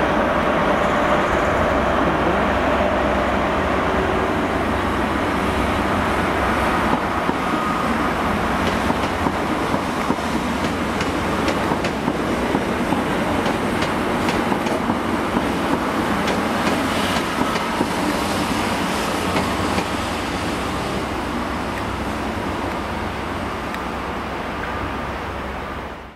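High Speed Train with Class 43 diesel power cars moving out of the station: steady diesel engine running, with wheels clicking over the rail joints and points. The sound fades slowly as the train draws away.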